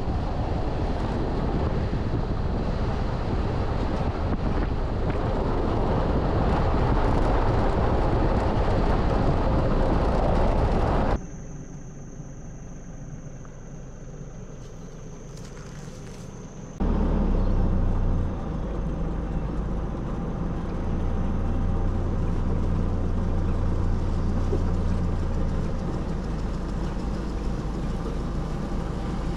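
Mazda BT-50 4WD driving on dirt road: steady engine rumble and tyre and road noise. About 11 seconds in, it cuts to a much quieter stretch of about five seconds with a steady high-pitched whine, then the driving noise returns.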